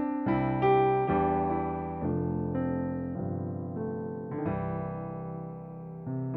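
Workstation keyboard playing a piano patch: sustained chords, each struck and left to fade before the next, changing every second or so.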